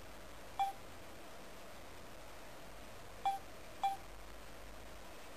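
Key-tone beeps of a Ferrari-shaped flip phone as its keypad buttons are pressed: three short beeps, one a little under a second in and two close together past three seconds.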